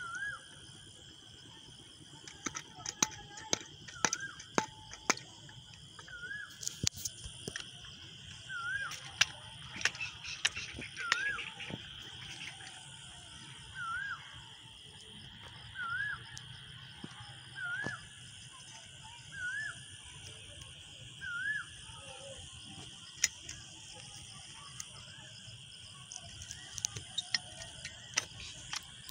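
Outdoor evening chorus of insects, a steady high-pitched buzz, with a short rising-and-falling animal call repeated about every two seconds until around two-thirds of the way through. Scattered sharp clicks and knocks.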